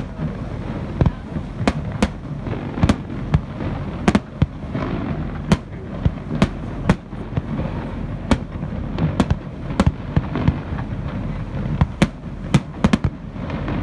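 Aerial fireworks shells bursting in an irregular run of sharp bangs, at times several in quick succession, over a continuous low background rumble.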